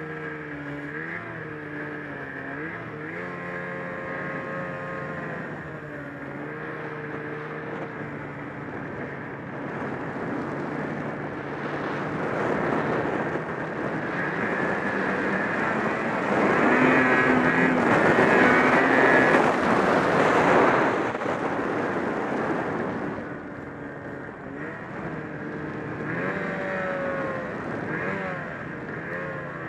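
Ski-Doo 800 H.O. two-stroke snowmobile engine running under throttle in deep snow, its pitch wavering as the throttle is worked. It grows louder from about a third of the way in and is loudest just past halfway. It then drops back and picks up again near the end.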